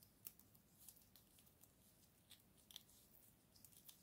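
Faint clicks and slides of trading cards handled and shuffled through by hand: a handful of short ticks, irregularly spaced, about one a second.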